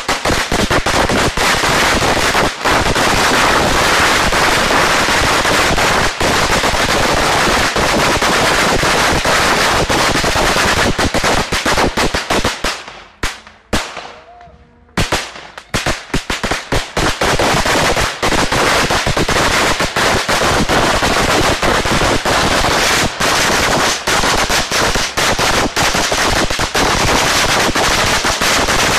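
A ground-laid string of about 25,000 firecrackers going off in rapid, continuous bangs. The crackling thins out for about two seconds midway, then resumes just as densely.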